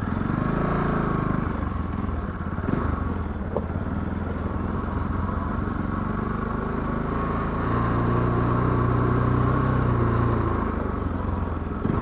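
Motorcycle engine running while it is ridden along a dirt track, heard from the rider's seat. The revs rise in the first second, settle, then climb again for a few seconds near the end before easing off.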